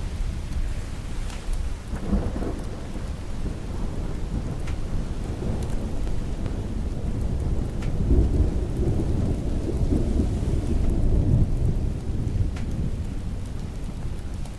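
Steady rain with low, rolling thunder that swells briefly about two seconds in and again more strongly for a few seconds past the middle. A few faint sharp ticks sound over the rain.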